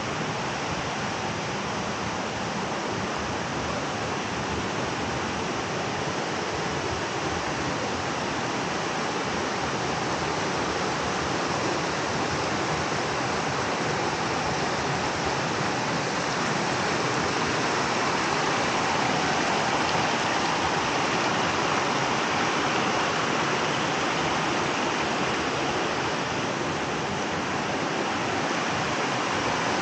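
Shallow creek rushing over rock ledges and small rapids: a steady wash of water, a little louder in the second half.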